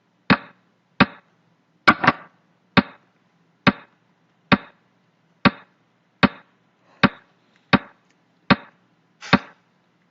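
Xiangqi pieces clacking down on the board as the moves of a game are replayed in quick succession: about a dozen sharp wooden knocks, one every second or a little less, with a quick double knock about two seconds in.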